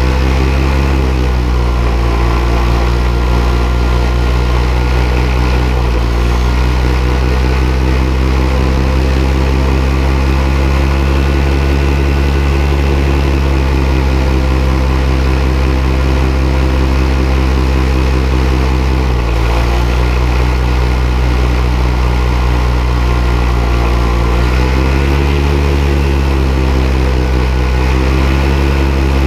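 Paramotor engine and propeller running steadily at flying power. The pitch dips and comes back up a few times as the throttle is eased off, with a longer dip and rise near the end.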